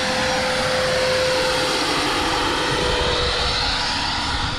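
Radio-controlled scale helicopter flying low: a steady whine over the rushing noise of its rotor blades.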